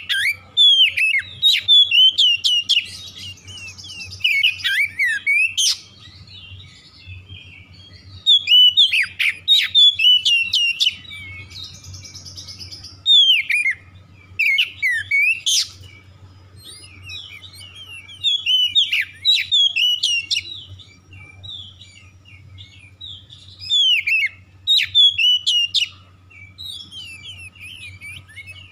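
Oriental magpie-robin singing loud phrases of fast, sweeping whistled notes. The song comes in bursts of a few seconds with short pauses between them, and a couple of harsh buzzy notes are mixed in.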